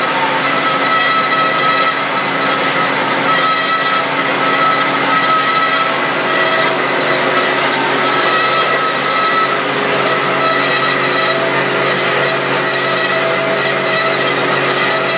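DoAll C-8 horizontal band saw running and cutting stock with its 1-inch blade under hydraulic down feed: a steady, loud machine whir with several steady whining tones.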